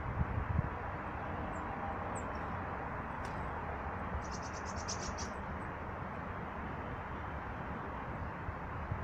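Small birds at a feeder giving short, high chirps now and then, with a rapid twittering run of about a second near the middle, over a steady rushing background noise.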